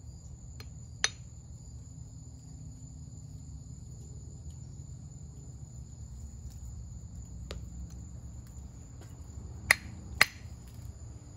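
Two sharp knocks about half a second apart near the end: a steel hammer striking a fossilized clam shell to break it open and expose the calcite crystals inside. One lone click comes about a second in. Insects trill steadily and high-pitched throughout.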